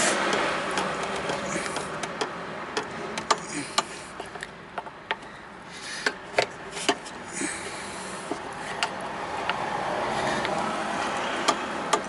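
Irregular sharp clicks and creaks of a plastic brake booster vacuum hose connector being levered and wiggled loose with a flat-blade screwdriver, over steady background noise.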